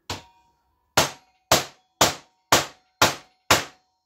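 A hammer striking a small metal motorcycle part on a metal tool tray: one lighter blow, then six hard blows about half a second apart, each with a short metallic ring. The part has closed up slightly and is being tapped open so that it will slide on.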